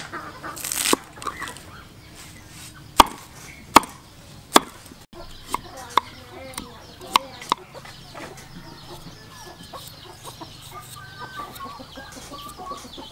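Knife blade striking a wooden chopping board, about seven sharp chops in the first half, while vegetables are cut. Chickens cluck in the background, more noticeably near the end.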